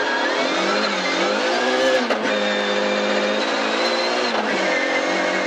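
Rally car engine heard from inside the cabin, accelerating hard through the gears on a snowy gravel road, with an upshift about two seconds in and another near the end, over a steady hiss of tyres on gravel.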